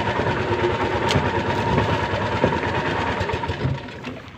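Small boat engine running steadily with a constant hum, dropping away near the end.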